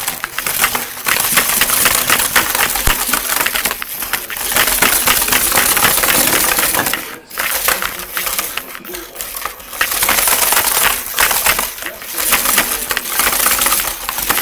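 Small robot moving with its servos and hard body parts rattling and the mounted camera shaking on top: dense, rapid clicking and clattering, with a brief pause about seven seconds in.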